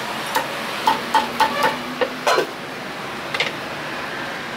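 Cleaver knocks on a wooden chopping block as roasted meat is cut: about seven irregular strokes in the first two and a half seconds and one more later, over a steady hiss of street background.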